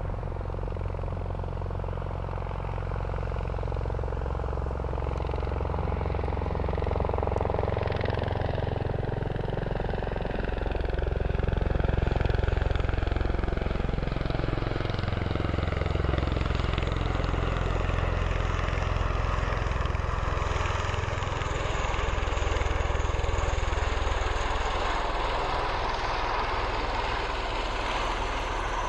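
Bell Boeing V-22 Osprey tiltrotor flying past low, its two proprotors and engines making a steady low thrum. It grows louder as the aircraft comes closest, twice, with the tone sweeping up and down as it passes.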